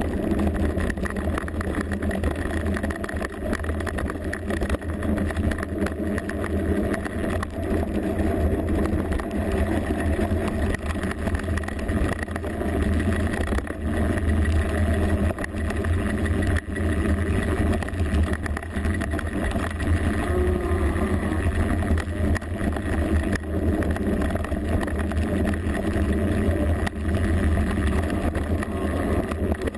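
Mountain bike riding down a rough trail, heard through a GoPro mounted on the bike: a steady deep rumble from the tyres and frame vibration, with constant rattling and jolts.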